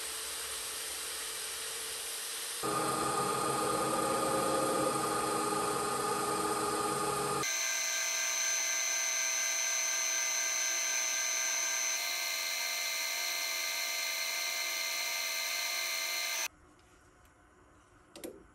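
A Hercules portable band saw cutting aluminium rod, then a small CNC lathe turning the aluminium shaft, sped up so that it sounds as a high-pitched whine. The machine noise stops abruptly about two seconds before the end.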